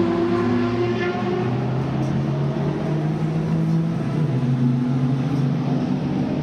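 Historic racing car engines running, several engine notes heard at once, each drifting slowly up and down in pitch.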